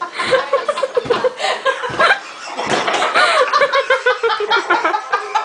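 High-pitched, rapid laughter, in quick repeated bursts several times a second, with a few sharp slaps or thumps in the first half.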